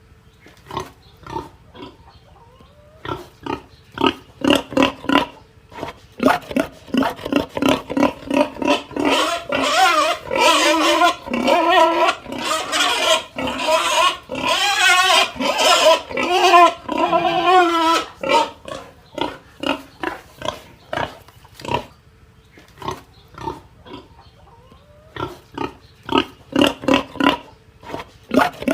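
Pig grunting in quick short bursts, then squealing loudly and continuously with a wavering pitch for about nine seconds in the middle, then going back to short grunts.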